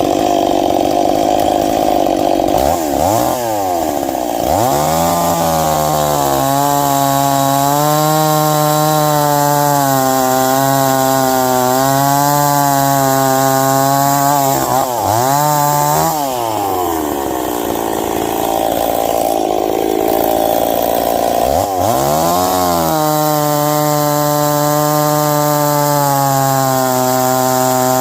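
Ported Stihl 026 two-stroke chainsaw cutting ash wood, held at high revs under load for long stretches. The revs drop and climb back a few times between cuts.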